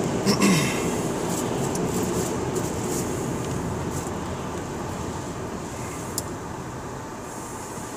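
Steady road and tyre noise heard inside a car's cabin on wet pavement, growing gradually quieter as the car slows down behind traffic.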